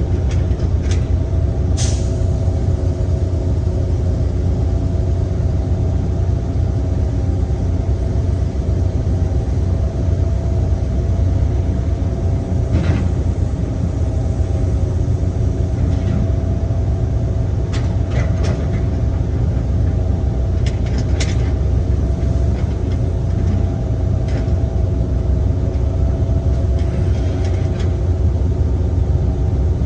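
Heavy diesel engine of an excavator running steadily, with a few short knocks scattered through.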